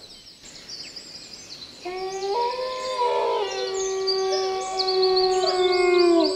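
Several drawn-out howls overlapping, starting about two seconds in. Each holds a steady note at its own pitch, and one falls away in pitch near the end. Birds chirp briefly and repeatedly above them.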